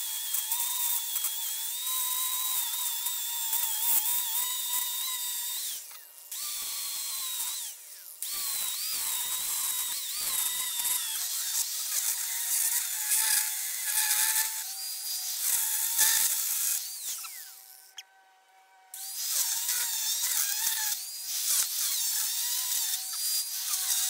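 Angle grinder cutting through the steel shell of a rotary air-conditioning compressor: a high whine whose pitch sags and wavers as the disc bites into the metal. It breaks off briefly a few times, with an almost silent gap about three quarters of the way through, then resumes.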